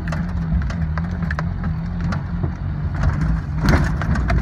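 Suzuki Samurai driving a rough dirt trail, heard from inside the cabin: a steady engine drone with scattered knocks and rattles from the bumpy ground, one louder knock a little before the end.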